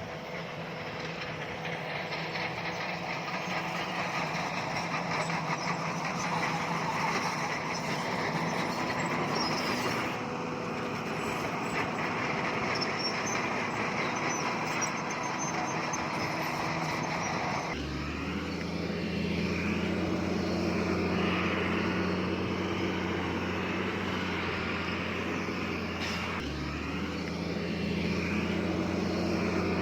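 Diesel engines of heavy earthmoving machinery running at a worksite. About 18 seconds in, a steadier, deeper engine drone comes to the fore, dipping briefly a little later.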